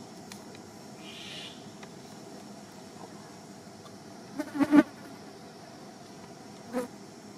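A flying insect buzzing close past the microphone, loudest in a brief pass a little after halfway through and again more faintly near the end, over faint steady outdoor background.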